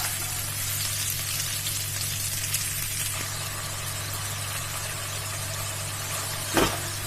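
Cauliflower Manchurian in its thickened sauce sizzling in a kadhai with a steady hiss over a low hum, and a single knock near the end.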